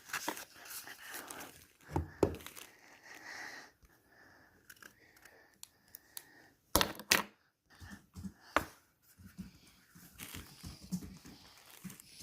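Paper and cardboard being handled by hand: irregular rustling and tearing, with a few sharp clicks and knocks, the loudest about two seconds in and again around seven seconds.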